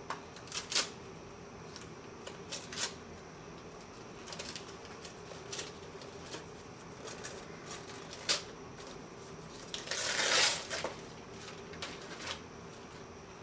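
Gift wrapping paper being torn and crinkled off a box by a child's hands: scattered crackles and rustles, with a longer tearing rip about ten seconds in.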